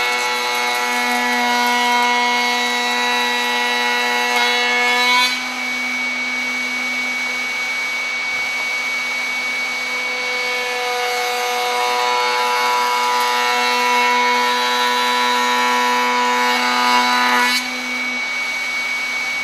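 A table-mounted router spins a 45-degree lock miter bit with a steady high whine while a hardwood board is fed through it twice. The board first passes lying flat on the table, and that cut ends about five seconds in. It then passes standing up against the fence, from about ten seconds in until near the end. Each pass adds a louder cutting sound that stops sharply as the board clears the bit.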